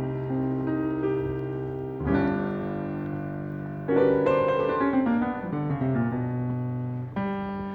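Jazz piano music, chords ringing out. A new chord comes about two seconds in and another near the end, with a falling run of notes in between.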